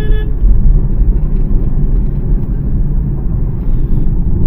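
Steady low rumble of a Hyundai Xcent diesel being driven, road and running-gear noise with the engine underneath. These are the extraneous noises that the mechanic puts down to loose suspension and wheel parts, not to the engine.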